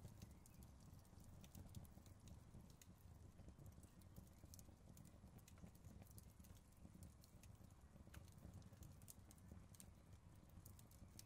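Faint, irregular crackling and popping of a small wood fire, over a low steady rumble.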